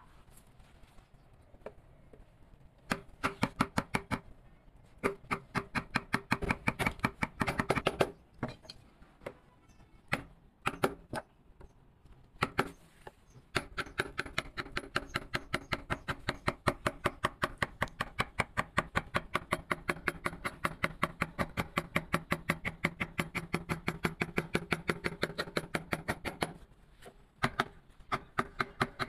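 Rapid, evenly paced taps of a mallet driving a carving chisel into wood, about four or five strikes a second. The taps come in several short runs, then one long run, with brief pauses between.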